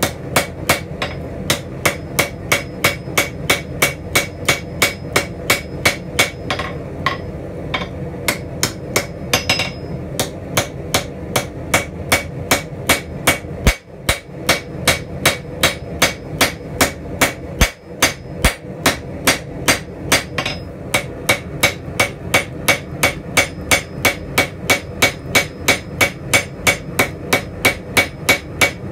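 Blacksmith's hand hammer striking a red-hot steel spatula blade on an anvil in a steady rhythm of about two to three blows a second, with a few short pauses. Each blow rings from the anvil and steel while the blade is forged thin.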